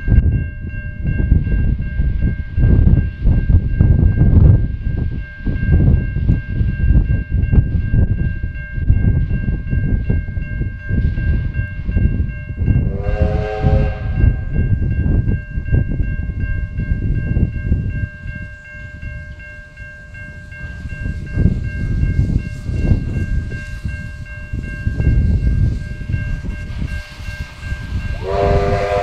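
Victorian Railways R class steam locomotive R707 working a passenger train past, a heavy low rumble throughout. Its steam whistle gives a blast of several notes at once about halfway through, and another begins near the end.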